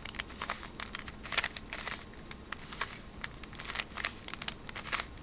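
A 3×3 Rubik's Cube's plastic layers being twisted by hand: a quick, irregular run of clicks and rattles as the faces turn.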